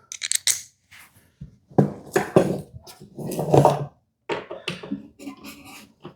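Small metal tools and driver bits being handled and rummaged through: a run of irregular clicks, clinks and knocks, with short pauses between them.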